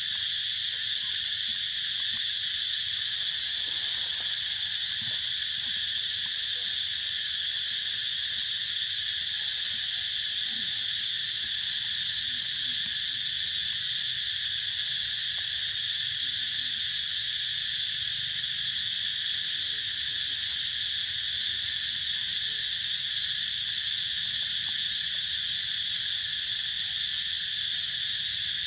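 Steady, unbroken high-pitched chorus of insects, holding the same level throughout.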